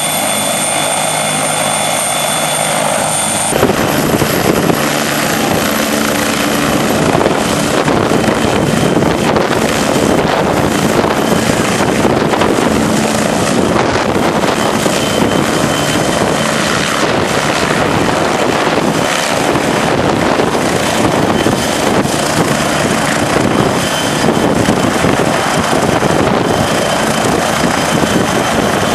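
Helicopter running loud and close: a steady whine with turbine tones, and about three and a half seconds in a sudden switch to a louder, dense rush of rotor and rotor-wash noise that holds steady.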